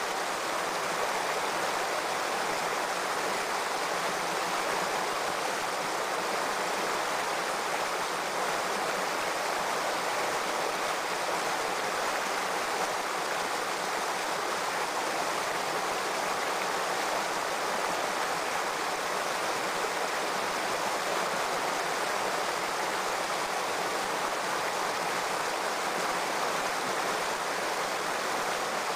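Shallow stream running over rocks: a steady rushing of water that does not change.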